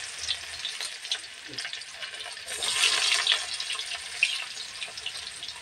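Onion pieces sizzling and crackling in hot oil with cumin seeds in a metal kadhai. The sizzle swells for about a second, starting around two and a half seconds in.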